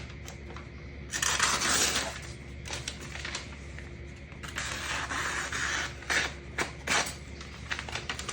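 Blunt kitchen knife being drawn through test material in a sharpness test: two long rough tearing, crunching passes, the second about four seconds after the first, then a few sharp clicks. The dull, chipped edge snags and tears rather than slicing cleanly.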